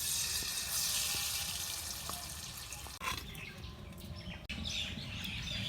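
Salt sprinkled onto hot oil in a kadai, making a sizzling hiss that starts at once and fades after about three seconds to a faint sizzle.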